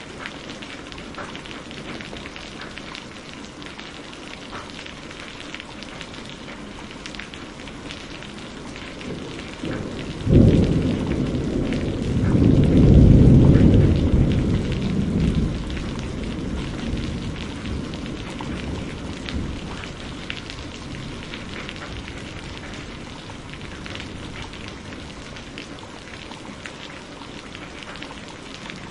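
Steady rain falling, with a thunderclap about ten seconds in: a sudden crack, then a loud deep rumble that peaks a few seconds later and dies away over several seconds.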